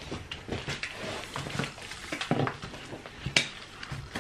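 A pair of slide sandals and their packaging being handled over an open cardboard box: irregular rustling and light knocks, with one sharp click a little past three seconds in.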